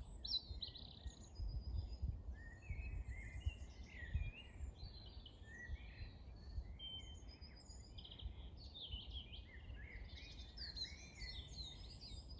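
Several songbirds singing at once, with many overlapping short chirps, trills and whistles, over a low rumble that has a few louder thumps in the first few seconds.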